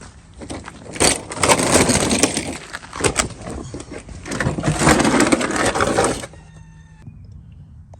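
Loud crunching, scraping and rustling with sharp cracks as a person gets down and shuffles under a car, stopping about six seconds in.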